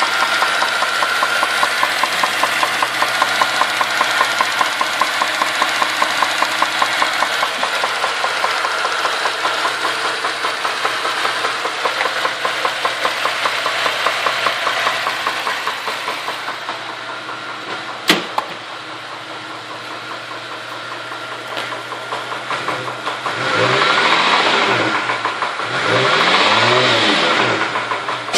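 Holden VZ Commodore engine running with a fast, regular knocking tick that is the car's reported fault, then blipped twice near the end, the pitch rising and falling with each rev. A single sharp click sounds about eighteen seconds in.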